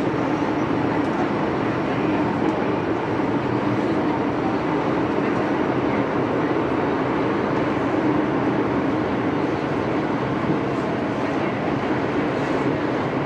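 Inside an MTR M-Train carriage running through a tunnel: a loud, steady rush of running noise and wind with a low drone underneath.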